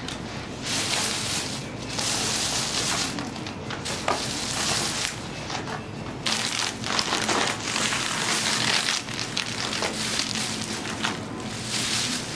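Black plastic carrier bag rustling and crinkling in irregular bursts as snack packets are pulled out of it.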